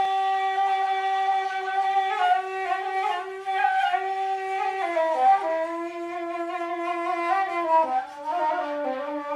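Intro music: a solo wind instrument playing a slow melody of long held notes, with downward pitch slides around the middle and near the end.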